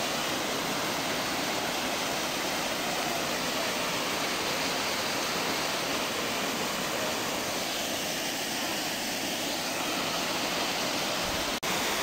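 Lotrișor waterfall, a thin mountain cascade falling down steep rock, giving a steady, even rush of water. The sound breaks off for an instant near the end.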